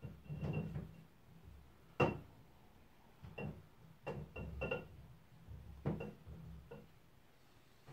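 Paintbrushes knocking and clinking against a glass jar as a hardened brush is worked in paint stripper, a series of irregular knocks with a sharp one about two seconds in.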